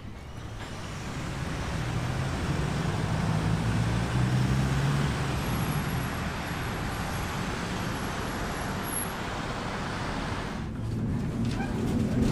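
Road vehicle running close by: a steady rushing noise with a low engine hum. It swells over the first couple of seconds and cuts off abruptly near the end.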